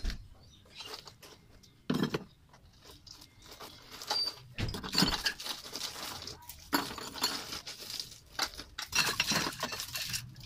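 Ice cubes clinking and clattering in a stainless steel basin and knocking against glass bottles as they are scooped by hand into a cooler of bottled drinks. The clinks come in irregular clusters, with a thump at the start as the basin is set down.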